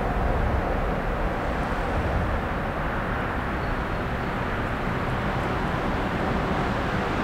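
Steady low rushing rumble of a distant ICE high-speed electric train running along the line.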